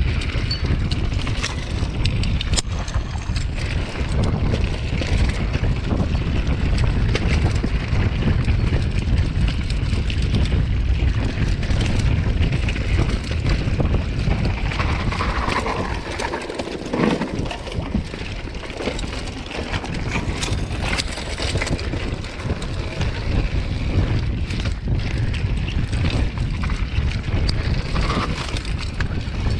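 Mountain bike riding down a rocky dirt trail, heard from a GoPro mounted on the bike: wind buffets the microphone, the tyres crunch over loose stones, and the bike rattles with many small knocks.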